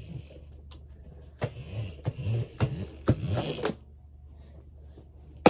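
A small motor whirring in several short bursts over about two seconds, then a single sharp click near the end.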